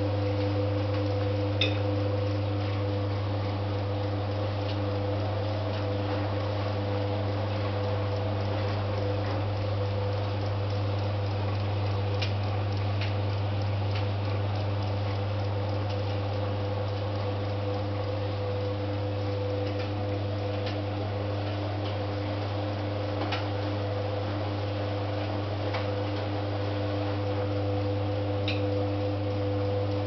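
1975 Hoover D6018 tumble dryer running: a steady motor hum with the drum turning the load, and a few light clicks here and there.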